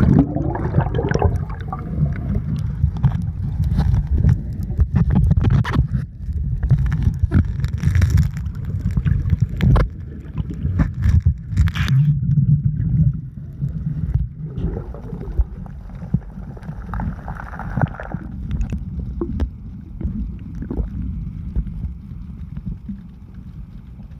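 Muffled underwater sound picked up by a camera below the surface: a low rumble of moving water with scattered clicks and bubbling, easing off somewhat toward the end.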